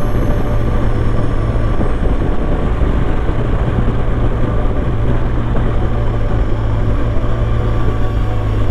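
BMW R1200GS Adventure's boxer-twin engine running steadily under way, with a low, even hum under heavy wind and road noise, heard through a microphone inside the rider's helmet.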